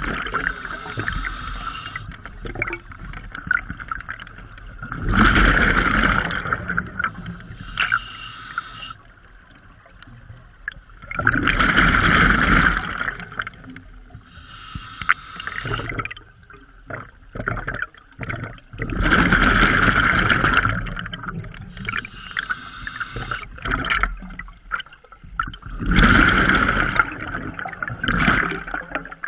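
Scuba diver breathing through a regulator underwater: a short hissing inhale, then a longer loud burst of exhaled bubbles, repeating about every seven seconds, four breaths in all.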